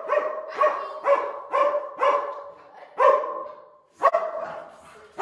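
A dog barking repeatedly, about eight barks: quick ones in the first two seconds, then spaced about a second apart, each ringing briefly in the room.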